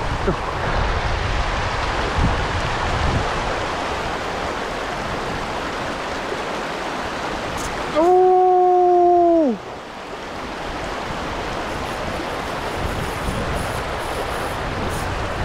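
Shallow stream rushing steadily over stones, with wind rumbling on the microphone in the first few seconds. About eight seconds in comes a loud, drawn-out vocal shout that holds for about a second and a half and drops in pitch as it ends.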